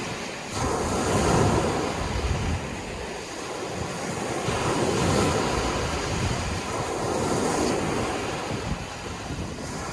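Sea waves breaking and washing in, the noise swelling and ebbing about three times.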